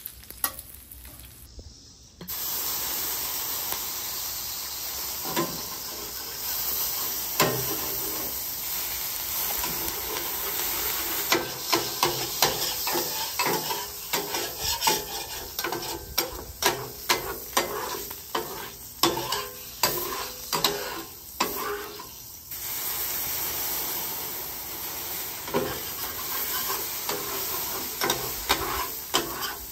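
Water squirted onto a hot stainless steel griddle plate, sizzling and steaming, while a metal scraper scrapes and clicks across the steel again and again, lifting off the cooked-on bacon residue.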